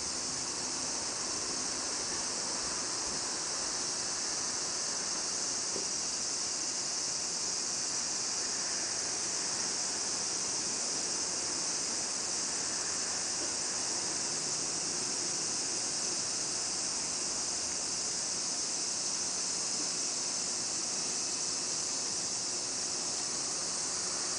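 Steady, high-pitched insect chorus.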